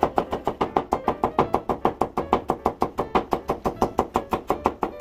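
Kitchen knife chopping rapidly on a cutting board, mincing a crushed garlic clove, in an even run of about nine sharp knocks a second.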